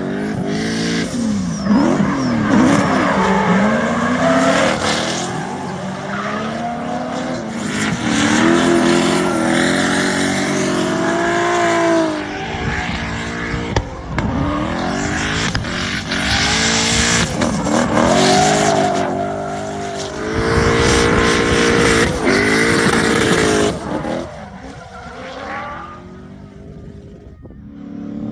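Turbocharged BMW M62B44 4.4-litre V8 in an E36 drift car, its revs rising and falling again and again, with tyres squealing as the car slides. The sound drops quieter for a few seconds near the end, then comes back up.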